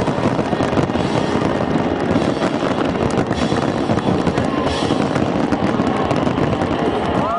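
Aerial fireworks going off in a dense, unbroken barrage of bangs and crackles.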